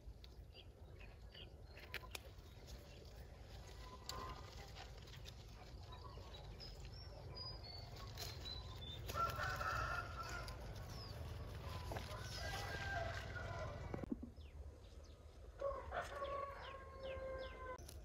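A rooster crowing about three times in the second half, with chickens clucking.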